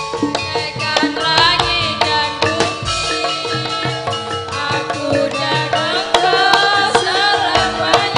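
Live oklik music: an ensemble of bamboo slit drums playing a steady rhythm, with a woman singing the melody over it through a microphone and PA.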